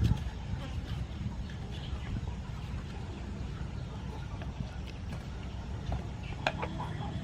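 Chickens clucking against a steady low rumble, with a sharp knock about six and a half seconds in; the clucking builds near the end.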